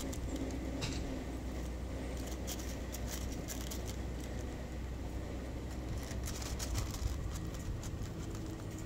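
Cat chewing dry kibble: irregular small crisp crunching clicks, in clusters, over a steady low background rumble.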